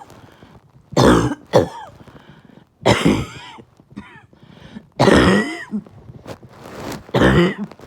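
A person coughing hard and repeatedly: about five harsh coughs a second or two apart, some with a voiced, throat-clearing sound.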